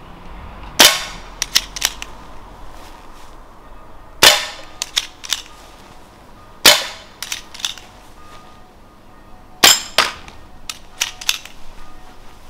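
Four shots from a Diana Bandit PCP air pistol, spaced about three seconds apart, each a sharp report with a short tail. Fainter sharp clicks follow between the shots.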